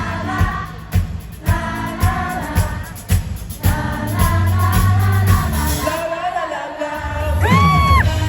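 Live pop-rock band playing with drums and sung vocals, a sung note swooping up near the end.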